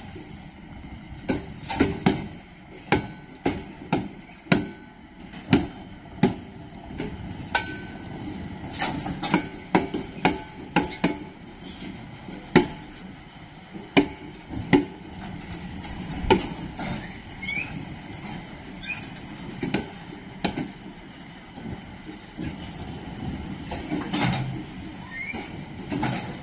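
Train of old EL2 electric locomotives rolling past on rails, running gear clanking in sharp, irregular knocks about once or twice a second over a low rumble, with a few short wheel squeals in the second half.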